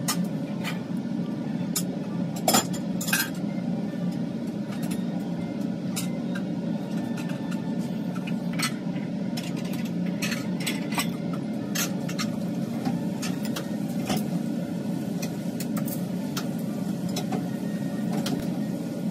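Cutlery and dishes clinking and tapping in scattered sharp clicks, the loudest about two and a half and three seconds in, over a steady low hum.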